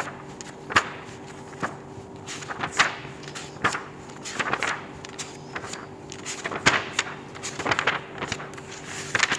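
Dry-erase marker strokes on a whiteboard: a series of short scratches and squeaks, roughly one a second, some in quick clusters, over a faint steady hum.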